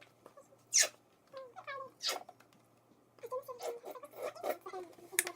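A pet animal whining in short, high cries that bend in pitch. Two short, loud noisy bursts come about one and two seconds in.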